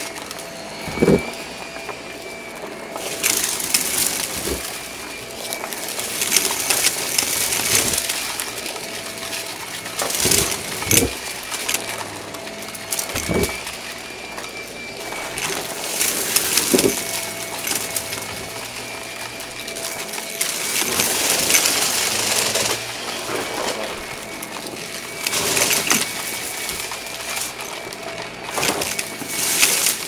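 Shark upright vacuum cleaner running on carpet, its motor whine steady while the rush of air surges louder every few seconds as the head is worked back and forth. Confetti and balloon scraps being sucked up make sharp clicks and rattles.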